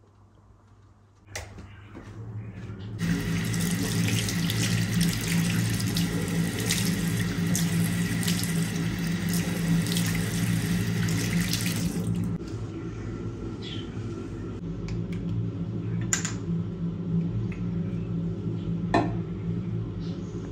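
Water running from a tap into a sink: a click about a second in, then a full rush from about three seconds in that drops to a quieter, steadier flow about twelve seconds in, with a couple of sharp clicks near the end.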